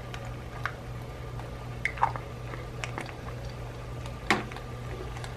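Scattered small pops and crackles from the Stanley camping pot heating on a Dash mini rice cooker as olive oil is poured over the pasta, over a steady low hum. The sharpest pop comes about four seconds in.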